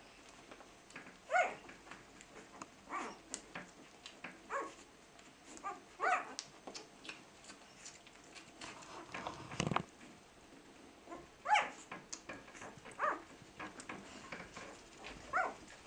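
Week-old flat-coated retriever puppies giving short, high squeaks and whimpers every couple of seconds, amid small clicks and rustling as they nurse.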